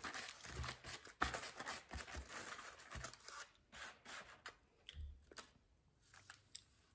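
Faint rustling, tearing and small taps of chicken wings and takeout packaging being handled, busiest in the first half and thinning to scattered taps later.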